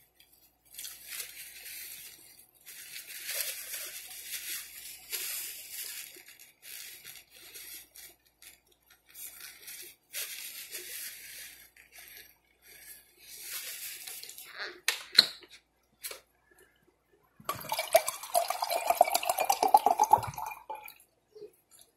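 Close-miked wet chewing and lip-smacking, coming in patches, with a louder, denser stretch of smacking near the end.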